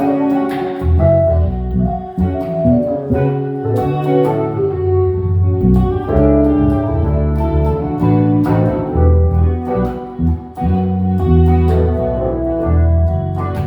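Instrumental band jam: guitar and organ-like keyboard over a prominent, moving bass line, with no singing.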